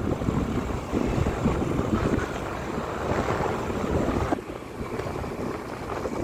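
Wind buffeting the microphone over vehicle and road noise while travelling through traffic. The noise drops abruptly about four seconds in.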